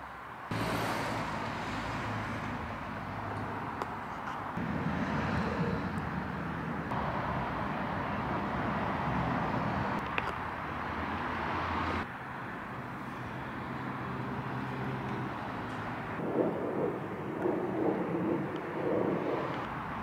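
Outdoor background noise with a faint, steady engine drone, such as distant traffic or an aircraft overhead. It changes abruptly several times, as if cut between recordings. Uneven, louder low bumps come in the last few seconds.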